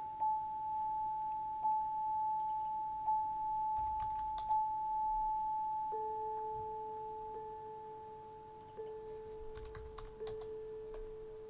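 geoMusica's sine-tone synthesis: a steady pure tone at about 856 Hz, restarting with a soft click roughly every second and a half as the heptagon's vertices sound. About six seconds in it drops an octave to about 432 Hz as the global scale setting is lowered. A few faint clicks come and go over it.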